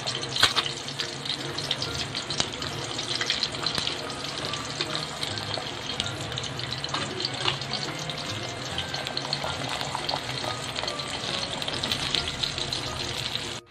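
Food frying in a pan, oil crackling and sizzling steadily, with faint background music.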